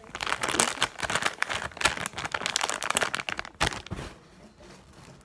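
Crinkly plastic-and-foil squishy packaging bag being handled and crumpled: a dense run of crackles for about four seconds, then much quieter.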